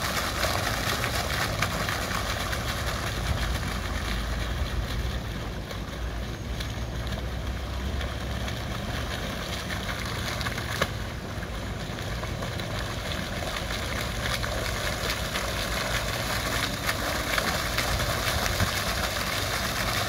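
Oase Schaumsprudler foaming fountain jet throwing an aerated column of water that splashes back into the pond: a steady rush of falling water with a low rumble underneath. It eases a little about a quarter of the way in, when the dynamic flow control has the jet low, and grows fuller toward the end as the column rises high again.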